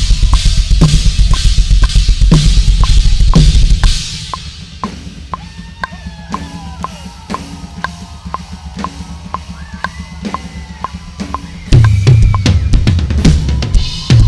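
Drum kit playing a solo in a live band setting: steady strikes with heavy low end, dropping to a quieter passage of lighter hits over a few held tones about four seconds in, then coming back in loud near the end.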